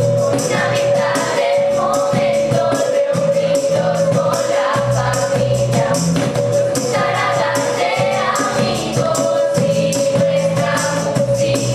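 A group of teenage girls singing a song together on stage, over music with a steady, even beat.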